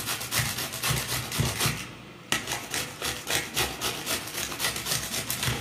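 Raw green mango being grated on a metal hand grater: quick rasping strokes, about four a second, with a short break about two seconds in.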